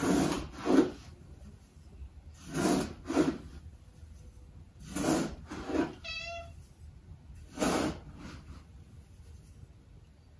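Repeated scraping in pairs, about every two and a half seconds, from a scoop being worked through cat litter. About six seconds in, a cat gives a short meow.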